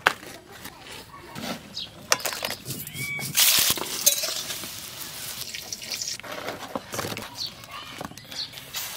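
A quick run of cooking sounds: knocks and handling noises, a short rush of noisy sizzling or splashing near the middle, and wet squelching of thick batter worked by hand near the end.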